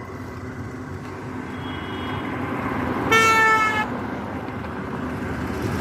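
A vehicle horn sounds once, a single flat note of under a second about three seconds in, over the steady rumble of passing road traffic.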